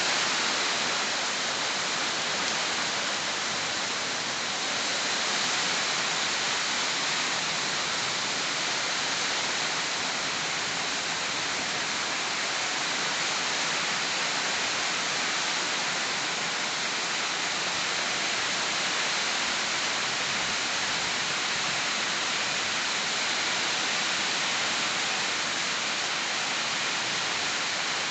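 Heavy rain falling steadily, a dense even hiss of rain pouring on surfaces.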